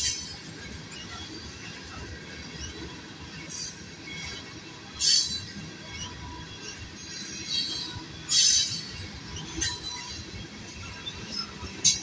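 Freight train tank cars rolling past with a steady low rumble, broken by short high-pitched wheel squeals that come and go, loudest about five and eight seconds in.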